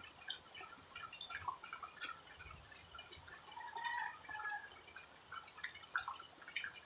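Water dripping in small irregular drops, with a brief chirping tone about four seconds in.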